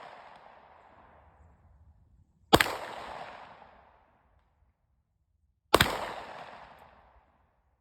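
Two gunshots about three seconds apart, each followed by a long echo dying away; the fading echo of an earlier shot is heard at the start.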